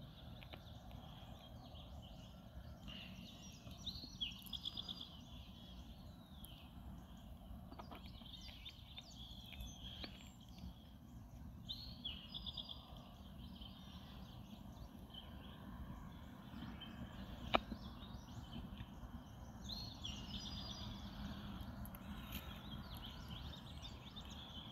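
Birds singing faintly over a steady low outdoor rumble, one of them repeating a short trilled phrase about every eight seconds. A single sharp click about two-thirds of the way through.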